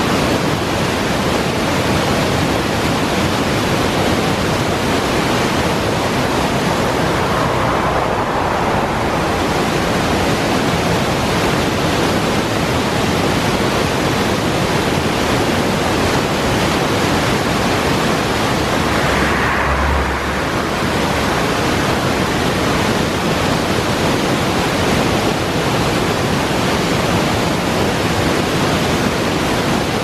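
Brook waterfall cascading over boulders: a loud, steady rush of falling water.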